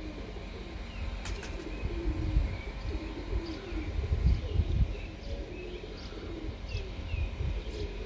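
Domestic pigeons cooing close by in repeated low warbling phrases, with small birds chirping higher up. A low rumble swells a couple of times, and there are two sharp clicks about a second in.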